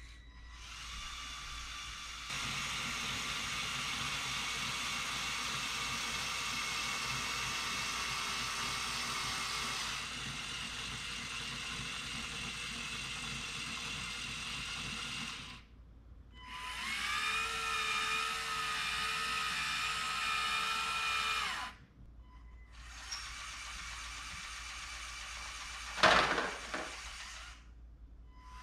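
Small Lego Control+ electric motors of a Lego Technic Liebherr 9800 excavator whining as it works its boom and bucket, in spells of several seconds with short pauses between moves. About two seconds before the end, a short, loud clatter as ping pong balls drop into the plastic dump-truck bed.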